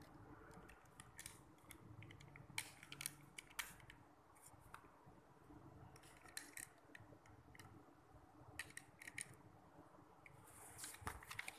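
Lego bricks clicking as they are pressed and snapped onto a baseplate by hand: quiet, scattered small clicks in short clusters, with a brief rustle near the end.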